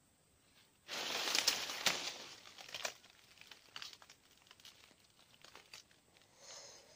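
A loud burst of crinkling rustle about a second in, lasting about two seconds, then trailing off into scattered small crackles and clicks.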